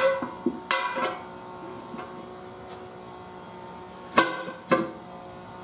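Sharp metallic clanks of a manual tire changer's steel bar against a steel wheel rim, each one ringing on: three close together near the start and two louder ones about four seconds in.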